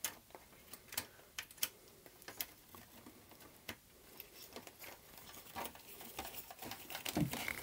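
Faint, irregular small clicks and taps of an angled pin-header connector and circuit board being handled and fitted together.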